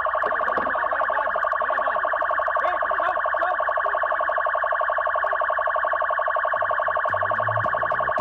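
Electronic vehicle siren sounding a steady, fast-pulsing tone throughout, with background music coming in near the end.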